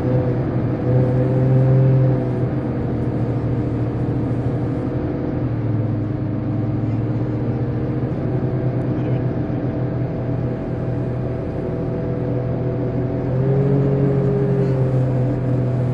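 Passenger hovercraft running over the water: a steady droning hum from its engines and twin ducted propellers, its pitch wavering slightly. It swells briefly near the start and again near the end.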